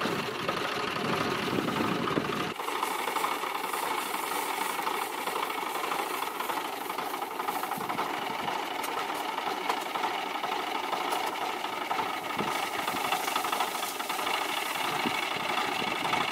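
Diesel engine of a CHAMP YTO454 farm tractor idling steadily. The deep low end drops away about two and a half seconds in, leaving the higher engine clatter.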